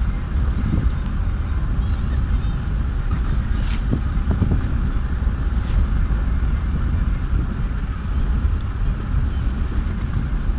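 Steady low rumble of a moving vehicle's engine and tyres on the road, heard from inside the vehicle through the windscreen. Two brief hissing swells come about three and a half and five and a half seconds in.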